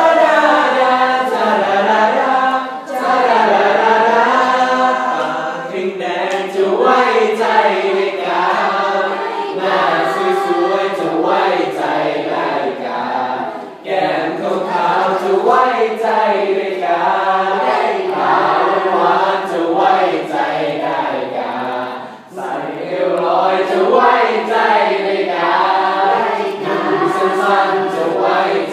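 A school choir of teenage girls singing in parts, breaking briefly between phrases about 3, 14 and 22 seconds in.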